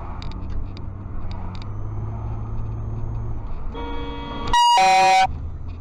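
Car horn honking at a vehicle cutting in ahead: a quieter honk just before four seconds in, then a loud blast of under a second, over steady engine and road rumble heard from inside the car.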